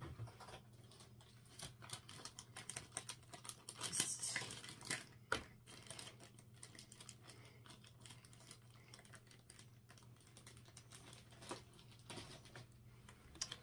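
Faint scattered clicks and light rustling of small objects being handled, with a brief louder rustle about four seconds in and a sharper click a second later, over a steady low hum.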